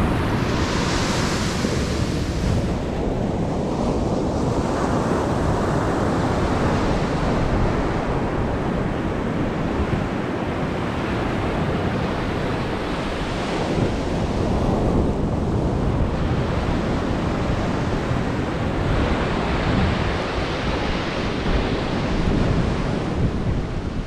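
Sea waves breaking and washing up the beach, swelling every several seconds, with wind rumbling on the microphone.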